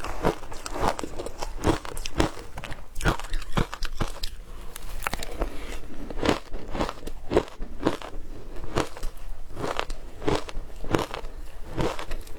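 Frozen matcha ice being bitten and crunched between the teeth: a continuous, irregular series of sharp crunches and crackles, roughly two a second.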